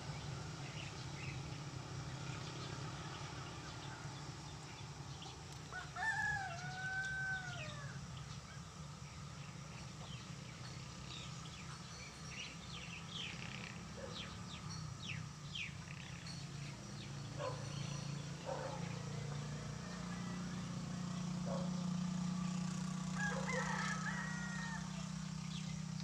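A rooster crows once about six seconds in, one arching call, over a steady low hum, with scattered short bird chirps. Another call comes near the end as the low hum grows louder.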